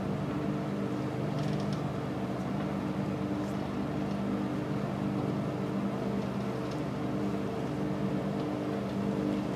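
A large engine running steadily at constant speed: a low hum made of several steady pitched tones over a rumbling wash.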